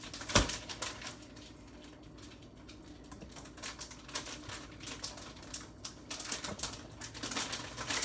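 A run of irregular light clicks and taps, with one sharper knock about half a second in.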